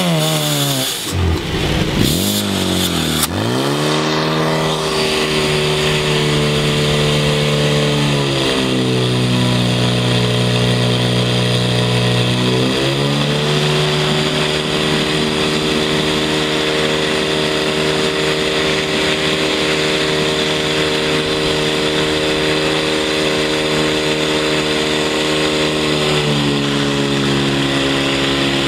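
Portable fire pump engine started and revved hard, running at high revs with its pitch dropping about eight seconds in, climbing back a few seconds later, and dropping again near the end as the throttle and load change.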